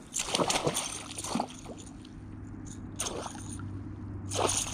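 A small northern pike, hooked by one hook, thrashing at the water's surface beside the boat. It makes four short bursts of splashing: about half a second in, just after a second, at about three seconds and near the end. A low steady hum runs underneath.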